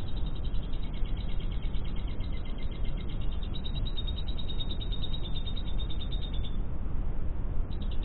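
Lovebird chattering in a long, rapid trill of short, high, evenly repeated notes. It breaks off about six and a half seconds in and starts again briefly near the end, over a steady low rumble.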